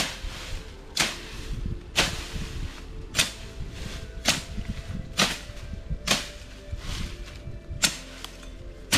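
Machete chopping through grass and undergrowth close to the ground, a swishing cut about once a second, nine strokes in all.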